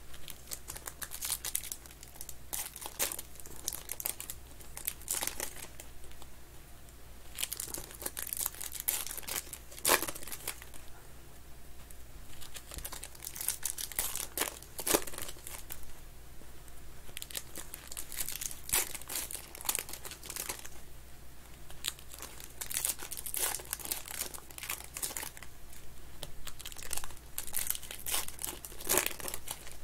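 Foil wrappers of Panini Contenders football card packs crinkling and tearing in the hands as the packs are opened, in irregular crackling bursts.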